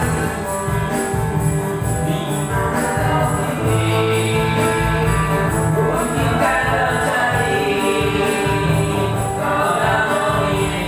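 A small band playing a pop song live on electric keyboard and two guitars, with a man singing lead.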